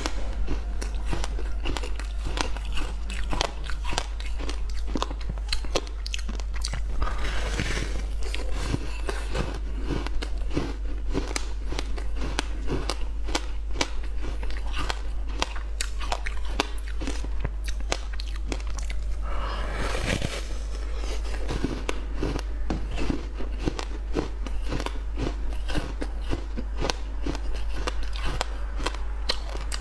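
Biting and chewing a frozen ice block set with passion-fruit pulp and seeds: a dense, irregular run of sharp ice crunches, over a steady low hum.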